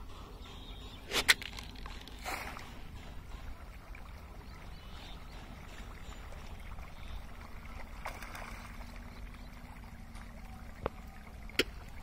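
Low steady rumble of wind on the microphone, with a few brief sharp splashes about a second in, around two seconds in and near the end, as a crowd of pangasius catfish churns at the pond surface.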